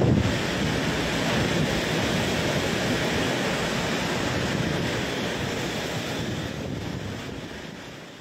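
Typhoon wind and torrential rain making a steady rushing roar, fading out near the end.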